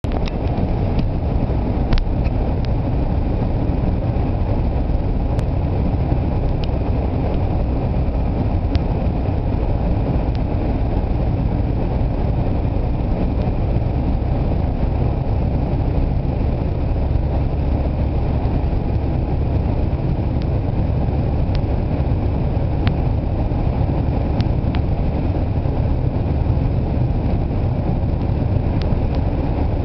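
Steady road and engine noise heard inside a moving car's cabin, with tyres running on a wet, slushy road. A few faint, sharp ticks are scattered through it.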